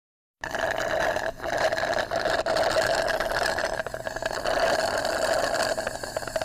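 A small motor running steadily with a fast, even rattle, starting abruptly just under half a second in.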